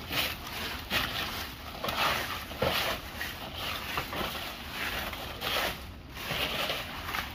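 Stick broom of palm-leaf ribs sweeping dry leaves over the ground: a run of uneven brushing strokes, one or two a second.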